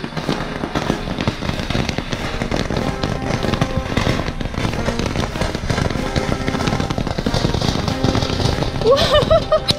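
Small fountain firework spraying sparks, giving a dense, continuous crackle.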